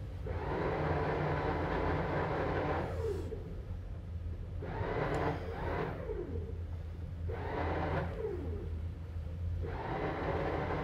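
Boat's electric bow thruster run in four short bursts, each a whirring rush that winds down as it is released, the last still going at the end. Under it, the steady low hum of the twin outboard engines running, one ahead and one astern, to walk the stern away from the dock.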